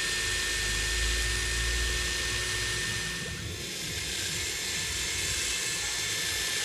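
A handheld drill running steadily at speed, used to clean the reusable brake hardware bolts. Its whine dips briefly about three seconds in, then holds steady again.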